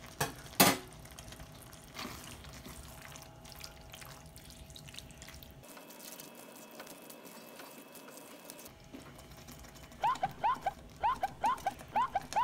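Thick, creamy chicken strogonoff being stirred and folded with a silicone spatula in a nonstick pan, a soft wet squishing of the sauce, with one sharp knock about half a second in. Near the end comes a quick run of short rising chirps.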